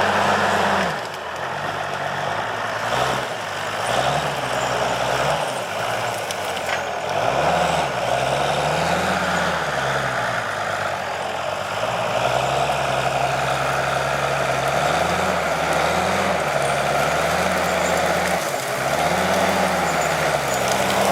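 Heavy diesel engine of a Timberjack forestry skidder working, its pitch rising and falling again and again as the throttle goes up and down.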